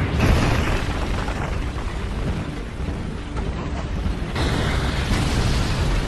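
Animated action sound effects of titans crashing through buildings: a heavy crash right at the start, then continuous rumbling of collapsing masonry and debris that swells again about four seconds in.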